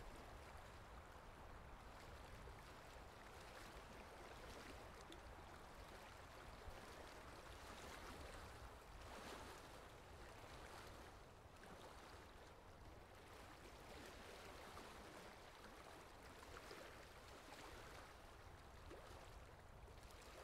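Near silence: a faint, steady hiss with a low rumble and no distinct sounds.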